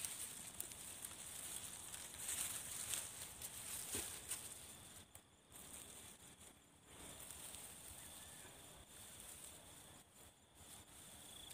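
Long grass stalks rustling and crackling as they are handled and pushed into the soil around a set rat trap, louder in the first half. Insects trill steadily and faintly underneath.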